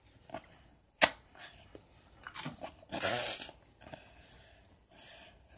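Close rustling and handling noises as fingers rub skin and hair near the microphone. There is a sharp click about a second in and a louder rustle a little past the middle.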